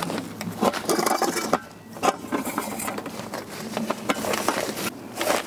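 Rustling of a padded fabric storage bag as an Omnia stovetop oven is worked into it, with a scatter of light knocks and clicks from the oven's metal pot and lid being handled.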